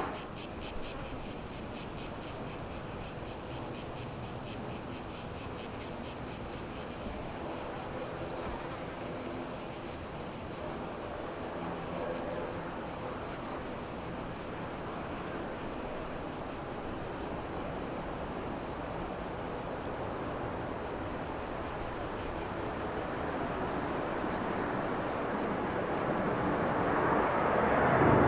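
A steady, high-pitched insect chorus with a fine pulsing buzz. Near the end a low aircraft rumble grows louder.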